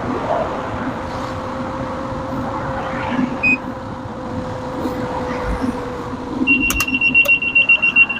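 Car running with a steady noise and a faint steady hum. About six and a half seconds in, a fast series of high electronic beeps starts, about eight a second.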